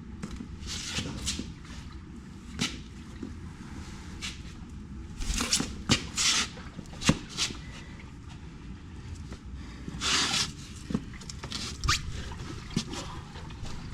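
Scattered knocks, clicks and short scraping bursts from a heavy cast-centre tractor wheel being handled and shifted by hand. The scraping comes in a cluster around the middle and again about ten seconds in.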